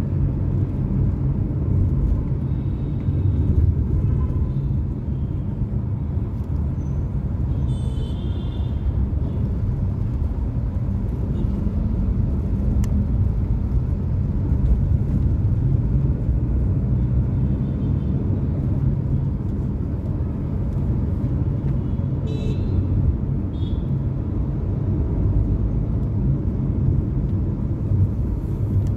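Steady low rumble of a car's engine and tyres on the road, heard from inside the cabin while driving in city traffic. Two short high-pitched beeps stand out, about a quarter of the way through and again past two-thirds.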